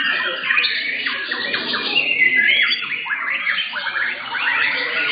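Several white-rumped shamas (murai batu) singing over one another: a dense run of quick whistled notes and fast sweeping phrases.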